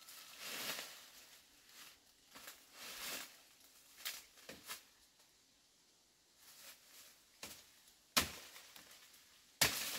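Scattered rustling and crunching, then two sharp knocks near the end, the loudest sounds here.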